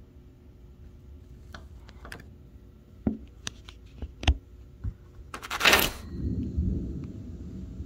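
Clicks, knocks and a short loud rustle of the phone being handled, then from about six seconds in a low, steady rumble of distant thunder.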